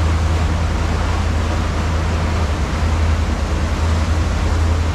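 Sportfishing boat's engines running steady under way, a loud low drone, with the rush of the wake churning white water behind the stern.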